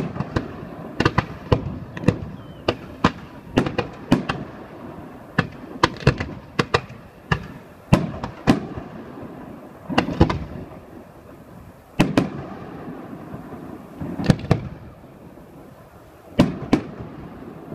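Aerial fireworks display: a run of sharp bangs from shells bursting overhead, irregularly spaced, some coming in quick clusters of two or three.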